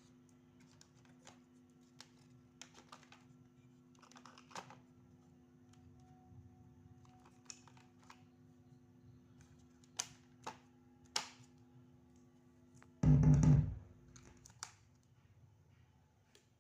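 Light taps and clicks of hands handling equipment over a steady electrical hum, with one loud, deep thud about thirteen seconds in; the hum cuts out shortly after.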